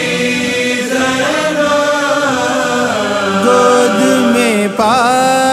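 Male voice singing a long, drawn-out note in an Urdu devotional manqabat recitation, with other voices holding notes beneath it. A new sung phrase glides in near the end.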